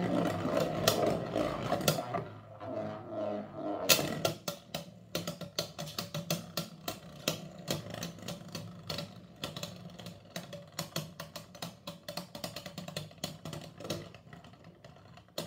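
Two Beyblade spinning tops spinning in a plastic stadium: a whirring hum at first, then rapid clicking and clattering as they knock together and against the dish, thinning out and fading as they slow near the end.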